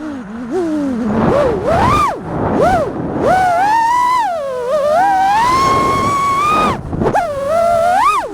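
Brushless motors and props of a 5-inch FPV freestyle quadcopter whining, the pitch sweeping up and down with the throttle. It climbs to a long high whine in the middle, drops away sharply near the end, then rises again.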